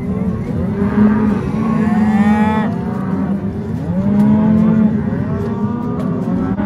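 A herd of cattle mooing and bawling, many calls overlapping one another, with long drawn-out moos from several animals at once.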